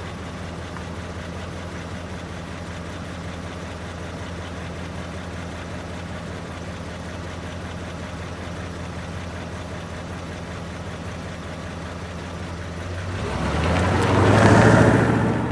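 Car engine idling steadily just after starting, then revved once near the end, rising and falling back.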